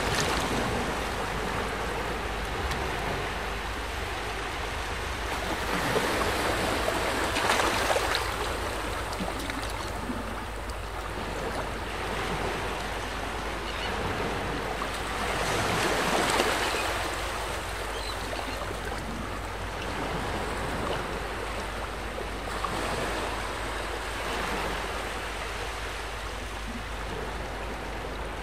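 Small waves washing at the shore: a steady hiss that swells and fades every several seconds.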